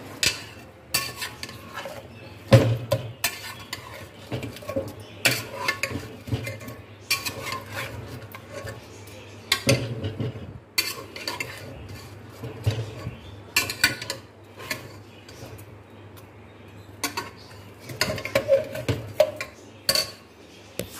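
Metal spoon stirring meat in masala in a metal cooking pot, with irregular clinks and scrapes against the pot's sides and bottom.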